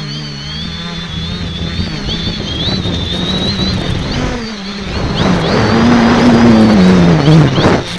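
Electric motors and propellers of an X550AIOP multicopter heard from its onboard keycam: a high motor whine and a lower prop hum that shift in pitch as the throttle changes. About five seconds in it gets louder, the low tone swinging up and back down, with wind rushing over the microphone.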